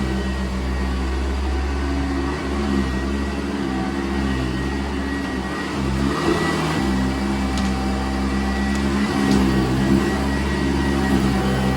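Commercial upright vacuum cleaner of the Sanitaire type running steadily on carpet, its motor giving a constant hum, with a brief change in the sound about six seconds in.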